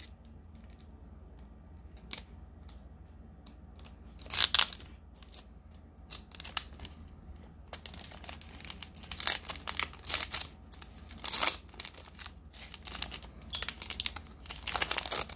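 Foil Pokémon card booster pack wrapper being crinkled and torn open by hand, with the light clicks of cards being handled. It goes in scattered crackles, with a loud one about four seconds in and busier crinkling in the second half.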